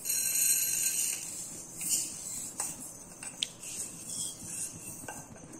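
Heated cooking oil in a small metal kadai on a gas burner: a brief hiss in the first second, then a few faint, scattered ticks.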